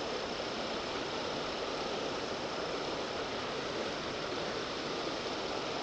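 River water rushing steadily in a strong current.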